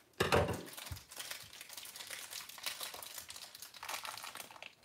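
Crumpled plastic blind-bag wrapper crinkling as it is squeezed and pulled open by hand, with a louder knock about a quarter second in.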